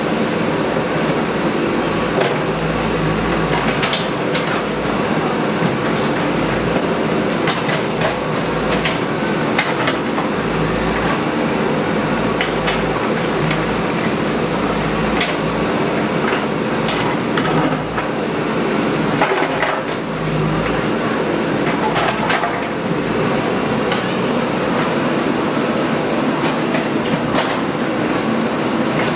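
Heavy diesel earthmoving machine running steadily under load, with irregular metallic clanks and knocks over the engine.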